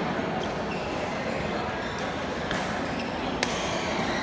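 Busy indoor sports hall: a steady hum of voices, with a few short high squeaks and two sharp hits, about a second apart, past the middle, typical of badminton rackets striking a shuttlecock and shoes squeaking on the court floor.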